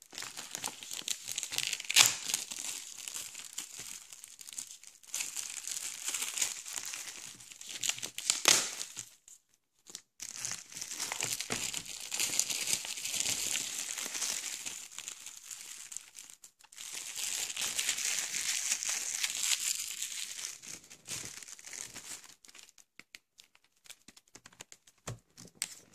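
Plastic bubble wrap and packaging being handled, crinkling and crackling in stretches of a few seconds with short pauses, with two sharper, louder crackles in the first nine seconds.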